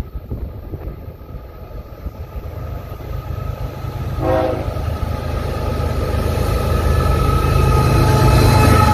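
Approaching Union Pacific diesel freight train: the low rumble of the locomotives grows steadily louder, and the horn sounds, swelling in the second half as the train nears.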